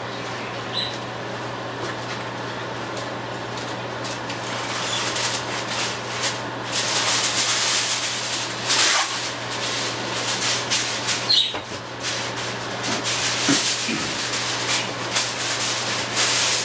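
Aluminium foil crinkling and rustling as a sheet is torn off and handled, irregular and loudest about nine seconds in. It starts about six seconds in, after a stretch of steady low hum.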